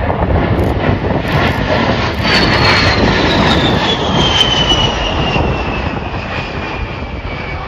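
Fairchild Republic A-10 Thunderbolt II's twin General Electric TF34 turbofans running through a low display pass: a steady jet roar with a high whine that glides slowly down in pitch as the jet passes.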